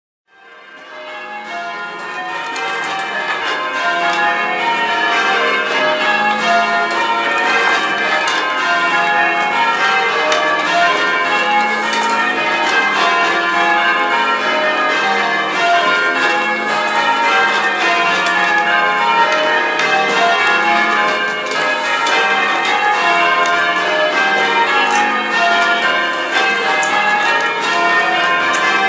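Church tower bells ringing changes: a ring of bells swung full circle and struck in a constantly shifting order, a steady stream of overlapping strokes. It fades in from silence over the first few seconds.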